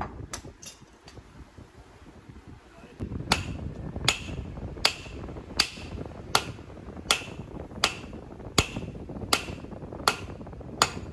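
Hand hammer forging a red-hot knife blade of gun-barrel steel on a railway-rail anvil. After about three seconds of near-quiet handling come about eleven sharp metallic blows in a steady rhythm, a little over one a second. Each heat of hand forging takes only about ten blows before the steel goes back into the forge.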